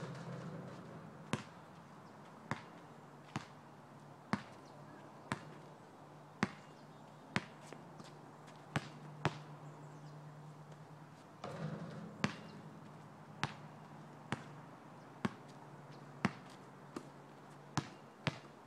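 Basketball bouncing on an asphalt court: sharp single bounces about once a second as the ball is dribbled, with a low steady hum underneath.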